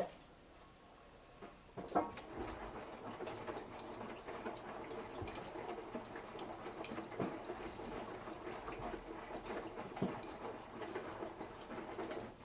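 Samsung Eco Bubble washing machine drum turning during a wash, the wet load tumbling with light clicks and rattles. It starts with a knock about two seconds in and stops shortly before the end.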